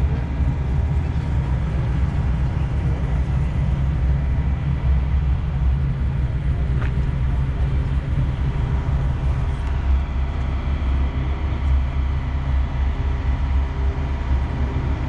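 A steady low rumble with no sudden events, carrying a faint high steady tone.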